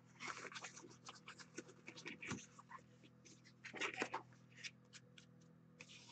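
Faint scratching and light taps of a cardboard trading-card box being opened and a stack of cards in hard plastic holders being lifted out, in small clusters with quiet gaps between.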